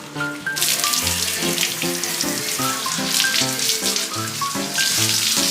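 Water spraying from a shower onto a dog being bathed: a steady hiss that starts about half a second in and grows louder near the end, over background music.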